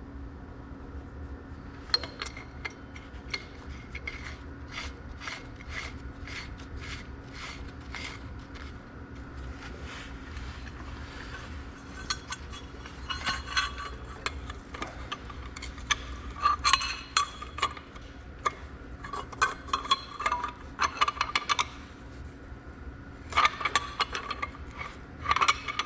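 Steel hand tools and parts clinking and tapping on the axle's final-drive hardware: a run of light, fairly evenly spaced clicks, then louder clusters of metallic taps and clinks from about halfway on, over a steady low hum.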